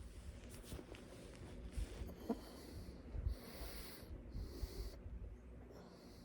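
A sleeping person snoring and breathing noisily, breaths swelling and fading several times, with a short whistling squeak about two seconds in.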